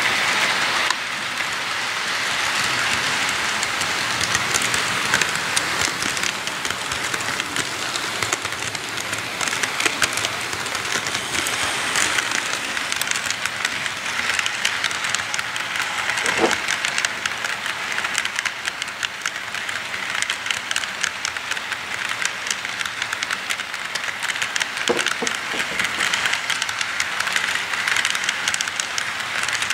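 Model freight cars rolling past on model railroad track: a steady rolling hiss of small metal wheels on rails, with many fine clicks and a couple of louder knocks.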